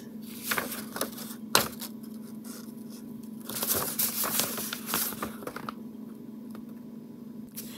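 Plastic packaging of a lip gloss being handled: rustling and crinkling with scattered clicks and taps, a longer stretch of crinkling in the middle.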